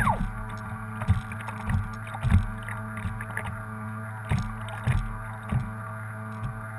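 Small waves slapping and knocking irregularly against the hull of a radio-controlled model tug boat sitting on choppy water, over a steady low hum.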